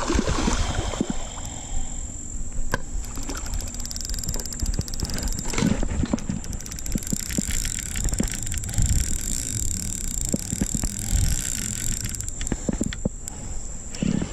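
Fishing reel being cranked in rapid clicking runs while a catfish is played, over low wind rumble on the microphone.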